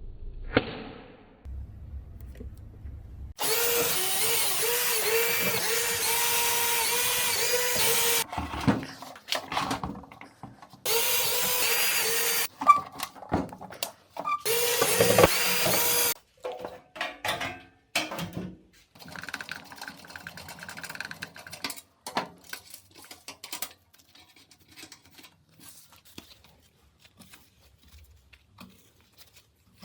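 A power tool run in three bursts, each starting and stopping abruptly: about five seconds, then two shorter runs of one to two seconds. Scattered clicks and knocks of handling follow.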